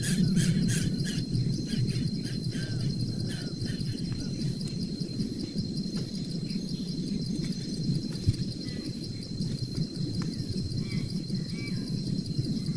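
Cricket chirping in a steady, fast pulsing trill, over a continuous low rumble, with a few short high chirps near the end.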